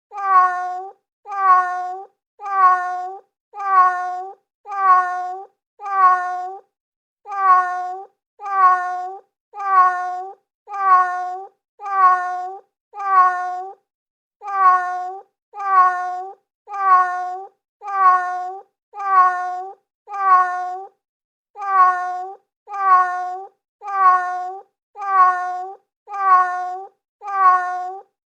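Domestic cat meowing: the same meow, dipping then rising at its end, repeated about once a second, with a slightly longer pause every six calls or so, like a looped recording.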